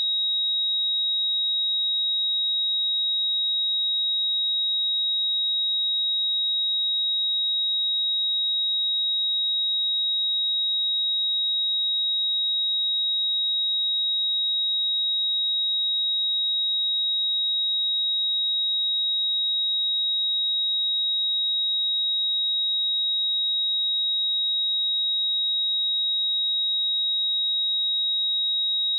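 A single steady 3798 Hz sine-wave test tone, a pure high-pitched whistle held at constant pitch and level.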